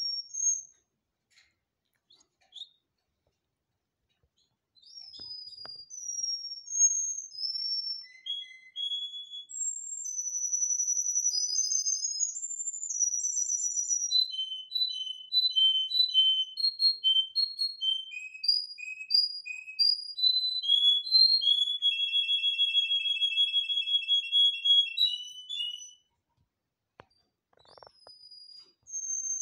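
Domestic canary singing: after a few scattered notes and a short pause, a long song of whistled notes and quickly repeated trills, with a fast rolling trill about three-quarters of the way through, before the song stops near the end.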